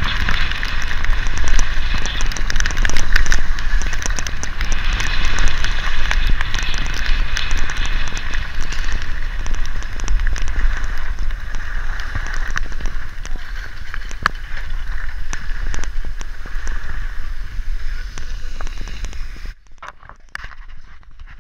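Gliding fast down a groomed, packed-snow slope: a steady scraping hiss from the edges on the snow, full of small crackles, with wind buffeting the microphone. The scraping drops away abruptly a couple of seconds before the end.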